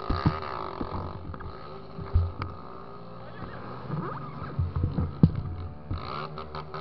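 Honda XR 250 Tornado motorcycle's single-cylinder engine running slowly with a steady low hum. Several knocks and thumps hit the microphone over it, the loudest about five seconds in, and near the end a fast, even pulsing sets in.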